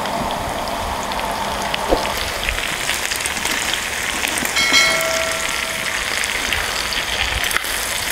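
Beef, onion and boiled tongue sizzling steadily in a hot oiled skillet, with fine crackling. A brief ringing tone sounds about halfway through.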